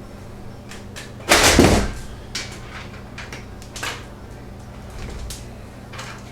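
Side panel of a Rosewill Blackhawk Ultra PC tower being handled and pulled off. There is a loud rattling scrape about a second in, lasting about half a second, then a few light clicks and knocks.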